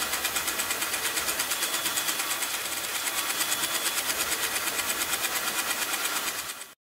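Industrial sewing machine stitching at a steady rapid rhythm, about six stitches a second, fading out near the end.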